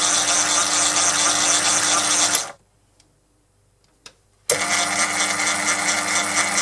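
Proxxon PD 250/e mini lathe running with its gear train engaged for the screw-cutting feed. It stops abruptly a little over two seconds in. After a brief silence and a click, it starts again about four and a half seconds in.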